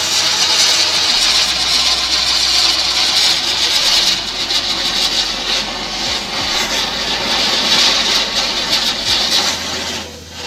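A firework spraying sparks with a loud, steady hiss that dies away near the end.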